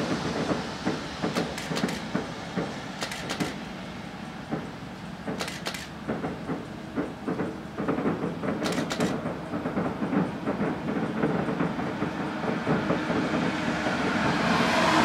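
Fireworks display heard from a distance: an uneven, rapid string of bangs and crackles from aerial shells over a continuous rumble, swelling louder near the end.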